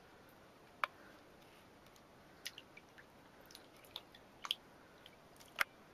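A cat pawing at shallow water in a bathtub: a few faint, short splashes and slaps, the loudest near the end.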